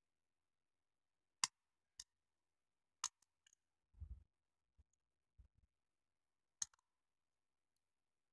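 A few sharp, isolated plastic clicks, about five spread through, from small gray plastic detail parts for an N gauge model train being worked on their runner with a hand tool, with a few soft low bumps near the middle.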